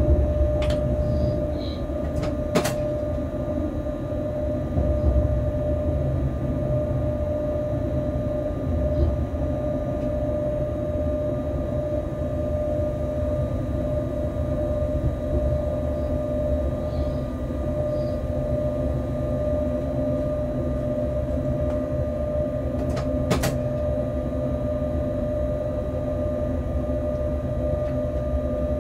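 Steady running noise in the cab of an electric locomotive running light along the track: a low rumble with a constant hum tone over it. Sharp clicks come about a second in, again near three seconds, and once more late on.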